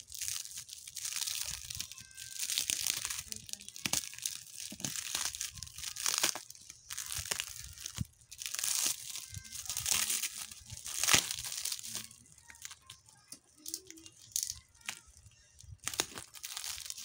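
Black plastic parcel wrapping and packing tape being torn open by hand: the plastic crinkles and tears in irregular bursts with sharp crackles.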